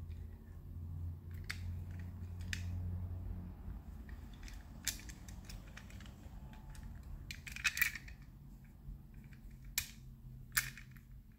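Scattered small clicks and light knocks from a die-cast metal toy jet car handled and turned over in gloved hands, its hinged wings and wheels moving, with a short cluster of clicks about eight seconds in. A faint low hum runs underneath.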